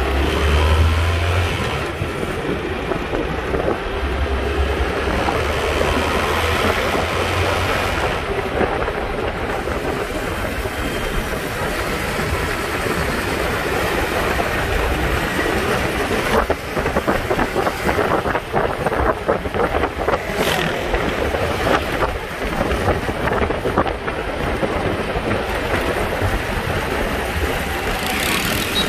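Small motorcycle engines running as the bikes ride along a road, with steady road and wind noise and no speech.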